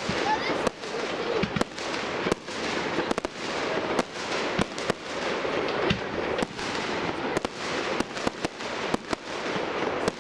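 Aerial firework shells bursting: a dozen or more sharp bangs at irregular intervals over a continuous hiss of noise.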